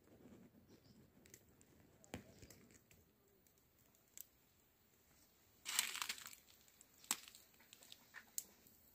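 Faint rustling and crinkling of a woven plastic sack of dried seeds, with a louder crinkling burst about six seconds in and a few sharp clicks.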